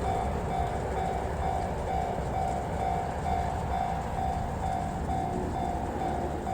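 Japanese railway level-crossing alarm ringing its repeated tone about twice a second, steadily, over a low rumble.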